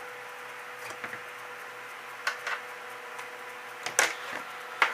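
A few light clicks and knocks from a circuit board and tools being handled on a workbench, the loudest about four seconds in, over a steady faint hum.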